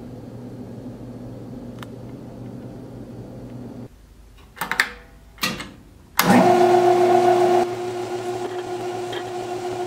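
A low steady hum cuts off, then two clicks come from the metal lathe's emergency-stop button. About six seconds in, the lathe's motor switches on and the spindle runs with a steady whine, loudest for its first second and a half before settling.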